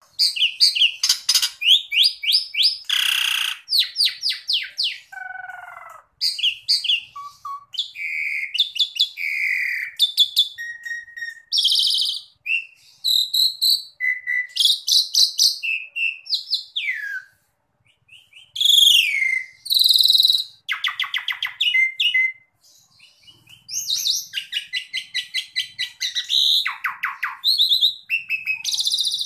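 Asian pied myna (jalak suren) singing a long, varied song of loud whistles, rapid chattering trills and rising and falling notes, broken by short pauses between phrases.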